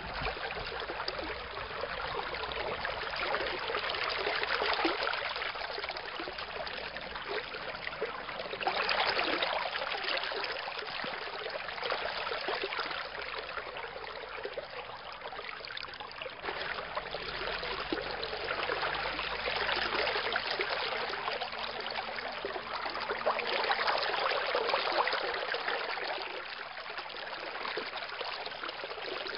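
Running water: a steady rushing that swells and eases every few seconds.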